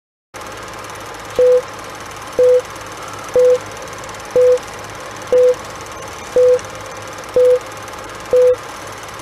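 Old film-leader countdown sound effect: a short beep once a second, eight times, each starting with a click, over steady film hiss and a low hum.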